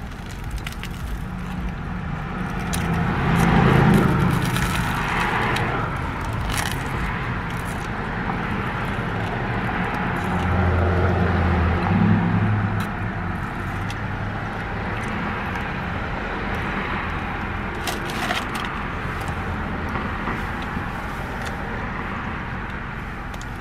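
Chewing and biting into a crusty baguette sandwich, with scattered crackles of the crust, over steady road-traffic noise that swells twice.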